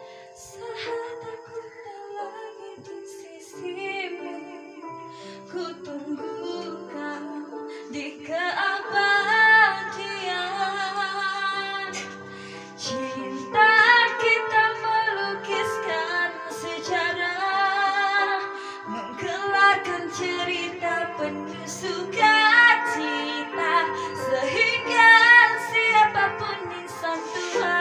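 A woman singing a slow, held-note ballad with vibrato into a handheld microphone over instrumental backing music. The backing plays softly at first, and the voice grows strong and loud about eight seconds in.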